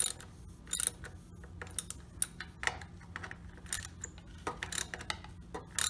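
Socket wrench ratcheting and clinking in short, irregular clicks as the carburettor's mounting bolts are snugged down a little at a time, squeezing the gasket against the plastic intake spacer.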